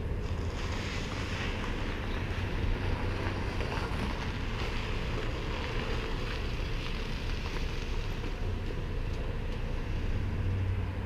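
A vehicle's engine running steadily, a constant low hum under a haze of wind noise on the microphone.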